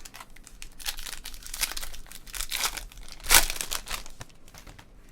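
Foil trading-card pack wrapper being torn open and crinkled by hand, a string of irregular crackles with the loudest rip about two-thirds of the way in.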